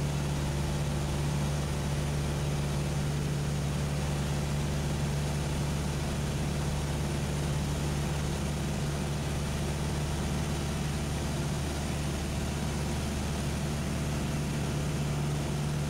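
Cessna 172SP's four-cylinder Lycoming IO-360 engine and propeller droning steadily in flight, heard from inside the cabin. The pitch and level hold even throughout.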